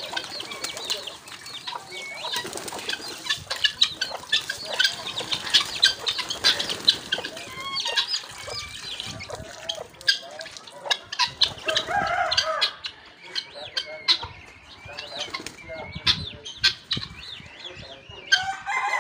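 Pigeons' wings flapping as they fly down and land among a mixed flock of fantail pigeons and chickens, many short sharp flaps through the whole stretch, with hens clucking and short high calls in between.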